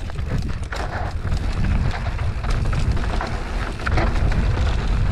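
Mountain bike descending a rocky dirt trail: wind buffets the microphone with a heavy low rumble while the tyres crunch over loose dirt and stones, with scattered clicks and rattles from the bike.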